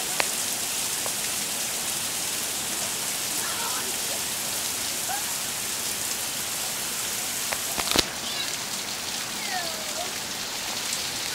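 Heavy rain falling steadily, a dense even hiss of rain on grass and pavement. A single sharp knock stands out about eight seconds in.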